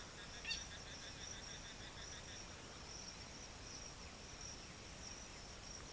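Insects, crickets by the sound, chirping steadily in a faint high pulsing trill. A short, faint high call comes about half a second in.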